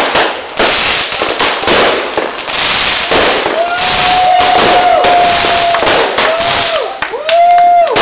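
Aerial fireworks going off close by: a dense, continuous crackling and popping of bursting shells. From about halfway in, a held whistling tone sounds several times over the crackle, each one dropping in pitch as it ends.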